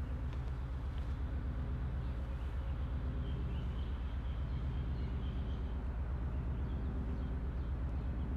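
A low, steady hum with a fast, even flutter, and a faint thin high tone drifting through the middle.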